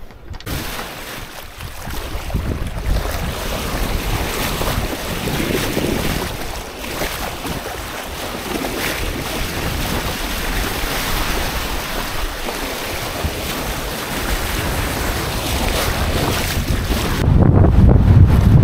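Wind and waves rushing past a sailing yacht under sail in open sea, rising and falling in slow swells. Near the end, a loud low rumble of wind buffeting the microphone takes over.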